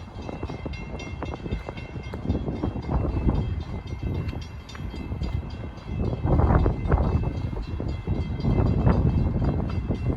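Long Island Rail Road train running past: a low rumble with sharp wheel clacks and a steady high whine, growing louder about six seconds in.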